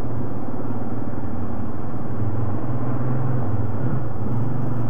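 ATV engine running steadily at low speed, a constant low drone, as the quad crawls across a beaver dam.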